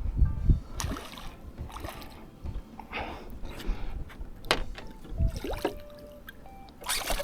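Scattered light knocks on a small rowing boat and brief splashes of water as a hooked trout is played and brought in.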